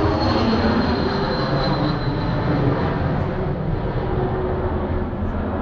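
Jet airplane passing overhead: a loud, steady rumble with a thin high whine that slowly falls in pitch, easing slightly near the end.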